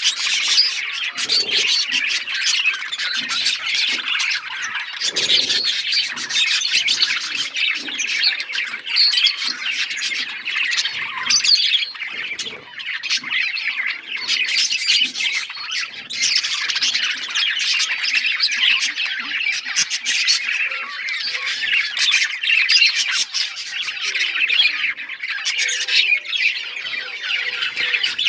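A flock of budgies (budgerigars) chattering and warbling all at once, a dense, continuous mix of chirps and squawks.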